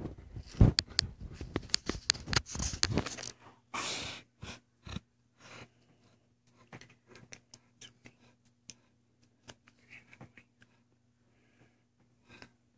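Close-up rustling and clicking as an Alaskan Malamute's muzzle and fur brush against the microphone, dense for about the first three seconds. After that comes a short breath, then only sparse small clicks over a faint steady low hum.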